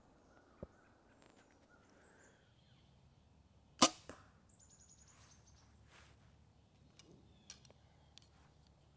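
A compound bow shot with a field-point arrow: one sharp crack of the release, then a fainter smack about a quarter second later as the arrow strikes the foam block target.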